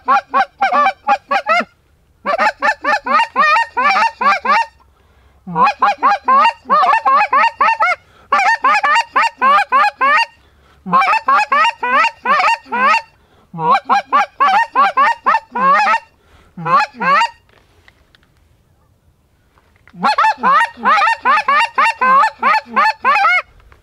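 Goose call blown in fast runs of honks and clucks. Each note breaks sharply upward in pitch. The runs last a second or two, with short pauses between them and a longer pause before the last run.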